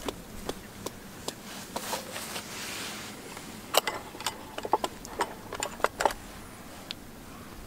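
Irregular small ticks and pops from oil heating in a COCOpan Basic 18 cm iron frying pan on a camp stove. The pops come in a quicker cluster about four to six seconds in, over a faint steady hiss.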